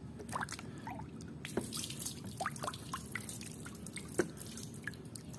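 Muddy water in a plastic tub dripping and splashing in small plops as a hand swishes a toy hammer through it to wash it.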